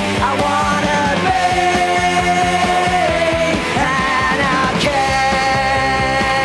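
Punk rock band playing at full volume: distorted guitars, bass and a driving drum beat, with a long held lead note that bends in pitch a few times.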